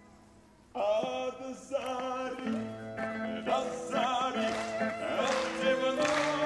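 Live Romani folk band music starts up loudly after a short, almost quiet pause: a wavering melody with strong vibrato over guitar and steady low notes. It gets brighter and busier near the end.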